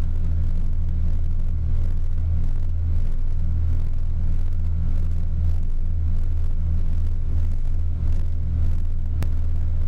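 Outboard motor running steadily with the boat under way, heard from inside the pilothouse cabin as a low, even drone over the rush of water along the hull. One sharp click comes about nine seconds in.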